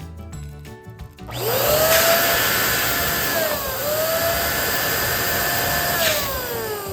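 Electric balloon pump blowing air: its motor spins up with a rising whine about a second in, runs with a loud steady rush, dips briefly partway through, and is switched off near the end, its whine falling as it spins down.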